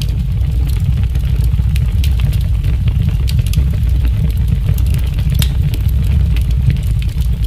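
A steady, loud low rumble with faint scattered clicks above it.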